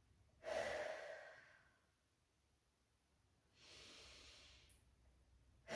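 A woman taking slow, deep breaths while holding a deep squat: a louder breath about half a second in, then a pause, and a softer breath about three and a half seconds in.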